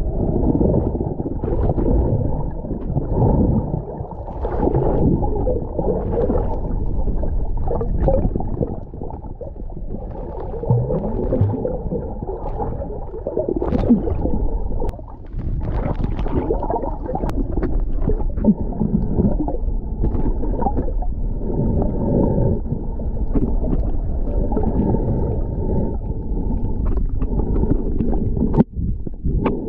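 Underwater sound picked up by a camera in a waterproof housing: a muffled low rumble of moving water with scattered sharp clicks.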